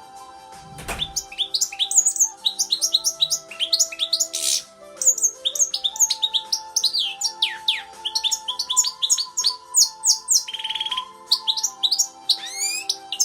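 European goldfinch singing: a fast, continuous twittering run of short chirps and sweeping notes. Steady held tones sound underneath, and there is a dull thump about a second in.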